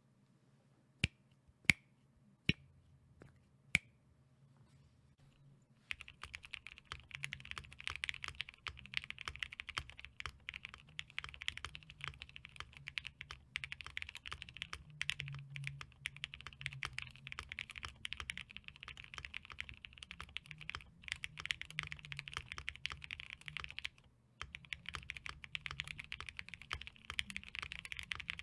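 Mode SixtyFive mechanical keyboard with Gateron Black Ink V2 linear switches on a POM plate: four single key presses, then fast continuous typing that pauses briefly once and starts again.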